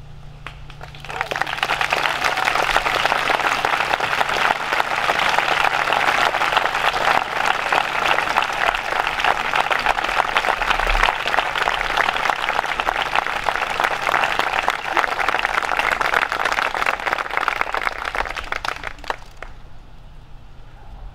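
Large outdoor audience applauding: steady clapping starts about a second in, holds, and dies away near the end.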